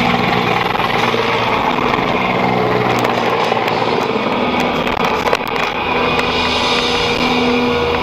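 Loud background music, a dense mix with sustained low notes.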